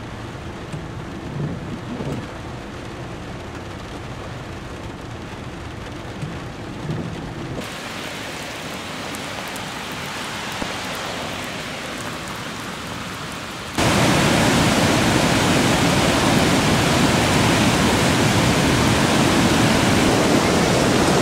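Steady rain and flowing floodwater, changing abruptly about 8 s in. About 14 s in it jumps much louder to the rush of a swollen, turbulent river in flood.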